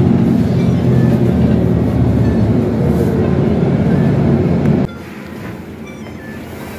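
City bus engine and road noise heard from inside the moving bus: a loud, steady low rumble with an engine hum. It cuts off suddenly about five seconds in, giving way to quieter cabin noise.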